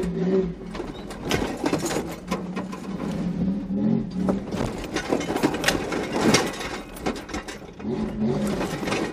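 Toyota 4x4 truck's engine working at low revs, rising and falling as it crawls over rocks, heard from inside the cab. Its tyres and body knock, creak and rattle on the rock, with the loudest clatter about six seconds in.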